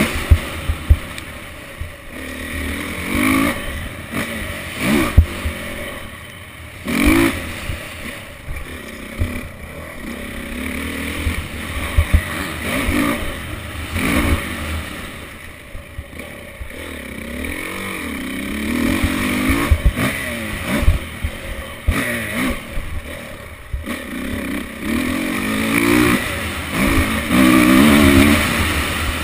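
Motocross bike engine revving up and down as it is ridden around a dirt track, its pitch rising and falling many times and loudest near the end. Sharp knocks come through at intervals.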